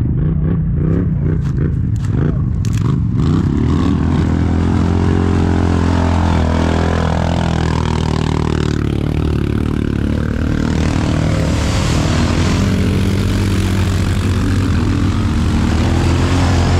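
Quad bike (ATV) engine running hard, pulsing during the first few seconds, then droning steadily with its pitch rising and falling.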